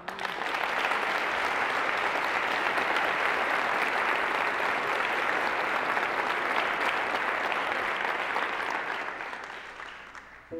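Audience applauding, starting all at once, holding steady, then tapering off near the end.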